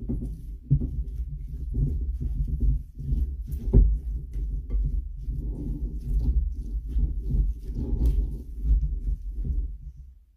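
Raw ground meat and egg mixture being stirred and folded with a plastic spoon in a glass bowl: continuous low squishing and thudding strokes, with a couple of sharper knocks, about four seconds in and again about eight seconds in.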